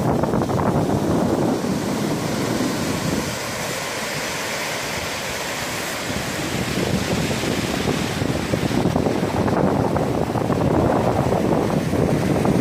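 Small waves breaking and washing up a sandy beach, mixed with wind rumbling on the microphone; the sound eases a little for a few seconds in the middle, then picks up again.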